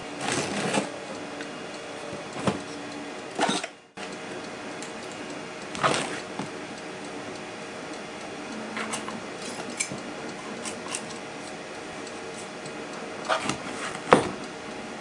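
Sand being packed into a small wooden core box: scattered knocks, taps and gritty scrapes as it is filled and rammed. Near the end comes a sharper scrape as the excess sand is struck off the top with a flat blade.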